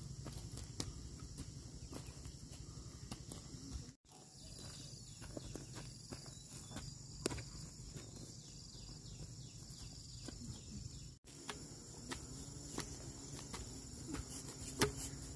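Scattered knocks of a bamboo planting stick jabbed into dry, burned soil and footsteps on charred ground, over a steady high-pitched chirring of insects.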